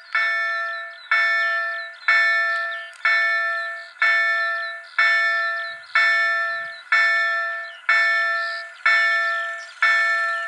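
Bombardier level-crossing warning bell ringing, one strike about every second, each fading before the next, sounding while a train approaches the crossing.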